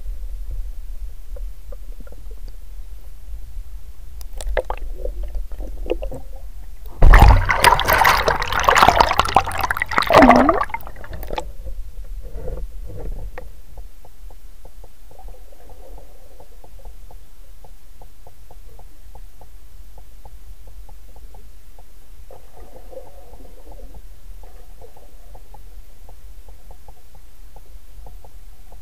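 Water heard muffled through an underwater camera's housing: a steady low rumble, broken about seven seconds in by a loud churning splash that lasts around three seconds.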